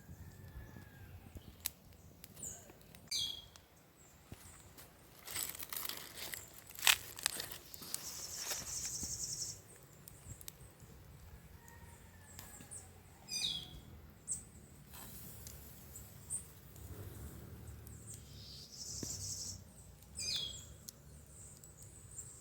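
Birds calling outdoors: three short high calls that fall in pitch, and two buzzy trills lasting a second or two, over a low background rumble. A few sharp clicks come in between, the loudest about a third of the way through.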